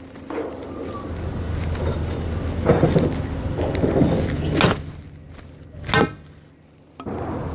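Boots crunching through packed snow over a steady low engine drone, with a sharp knock about six seconds in. The drone drops away for a couple of seconds near the end, then comes back abruptly.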